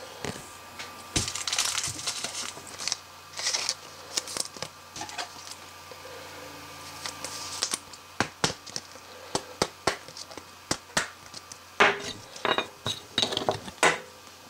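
Trading cards and plastic card holders being handled: a run of sharp clicks and taps, thickest in the second half, with short stretches of plastic rustling.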